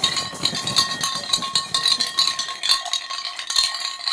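Rapid, irregular metallic rattling and clinking over a few steady high-pitched tones, a noise-music texture.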